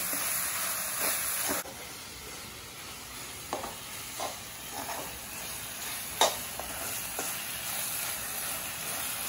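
Chopped onions sizzling in oil in a metal kadhai, stirred with a steel spoon that scrapes and clicks against the pan every so often. The sizzle drops in level about one and a half seconds in.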